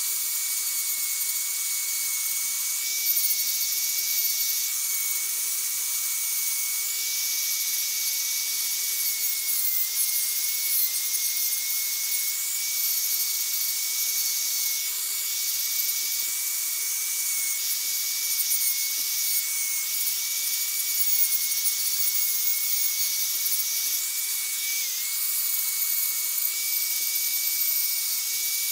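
Handheld electric rotary grinder with a carving bit running steadily with a high whine while it grinds into wood. Its pitch sags briefly under load about ten seconds in and again about twenty-five seconds in.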